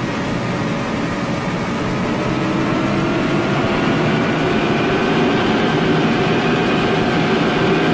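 Hydrofoil's gas turbine heard from inside the pilothouse during takeoff: a loud, steady mechanical noise with a whine that slowly rises in pitch and grows a little louder as the turbine is throttled up.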